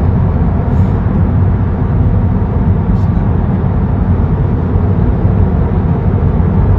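Steady low rumble of tyres and road noise inside a Tesla's cabin while it cruises at motorway speed.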